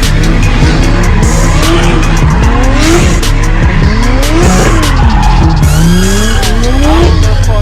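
Car engines revving up and down, with tyres squealing as cars drift, under music with a steady beat.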